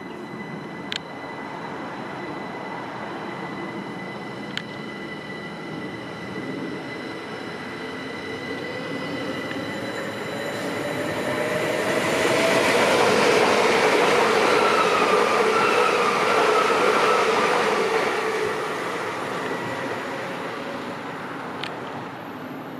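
Two coupled GWR Class 387 Electrostar electric multiple units running past on the main line. They grow louder to a peak a little past halfway and fade as they move off. A whine from the traction motors rises in pitch over the wheel and rail noise.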